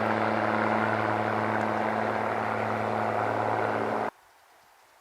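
Steady drone of a van driving at highway speed, heard from inside the cab: a low engine hum with road and wind noise. It cuts off suddenly about four seconds in, leaving near silence.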